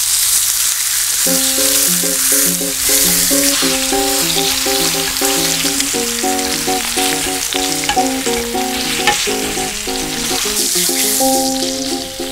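Iberico pork secreto sizzling on a very hot cast-iron griddle pan as its marbled fat renders, a dense, steady frying hiss that eases near the end. Light background music with a repeating plucked pattern comes in about a second in.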